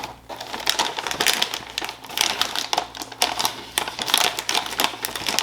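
A cereal box and its plastic inner bag being opened by hand, the bag crinkling with many quick, irregular crackles.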